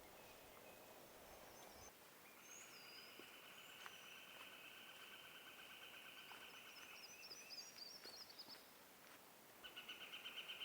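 Faint woodland wildlife: a long, even trill of rapid pulses holds for several seconds, another starts near the end, and a few high bird chirps and a quick warbling phrase come over the top.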